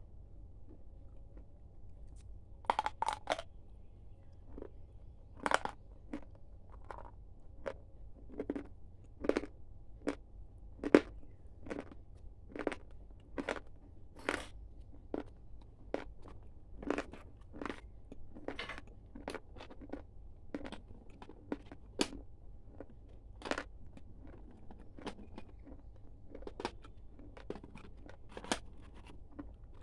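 Close-up crunching as Kurkure corn puff sticks are bitten and chewed: a quick run of sharp crunches about three seconds in, then single crunches about one to two a second.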